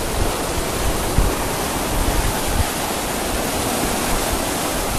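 Sea surf breaking and washing over the rocks and sand, a steady hiss of rushing water with an uneven low rumble.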